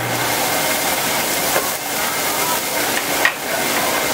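Angus beef patties sizzling on a flat-top griddle, a steady hiss, with one sharp click a little over three seconds in.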